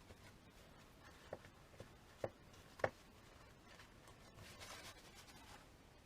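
A few light clicks and knocks of small hard parts being handled, four in about a second and a half with the last two the sharpest, then a short soft rustle.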